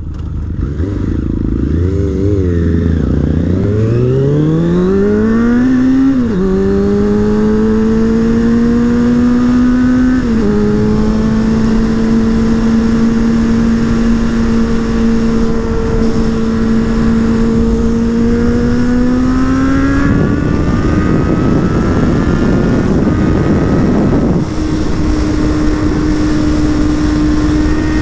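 Suzuki Bandit 600's inline-four engine and exhaust under way, accelerating through the gears: the pitch climbs and drops sharply at upshifts about six and ten seconds in, then holds steady before rising again near the end, with wind rushing over the microphone.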